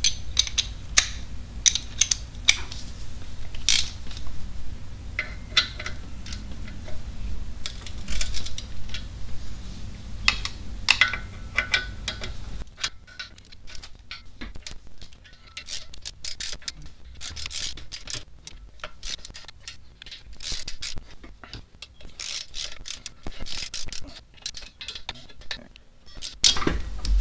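Hand ratchet clicking in quick runs, with metal clinks of sockets and tools, as the clutch pressure plate bolts are run down onto the flywheel before torquing. A low hum underneath cuts off about halfway through.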